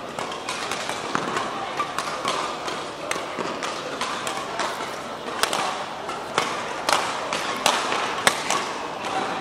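Badminton rally: rackets striking the shuttlecock back and forth in sharp cracks, coming quicker and louder in the second half, over the steady background noise of a busy sports hall.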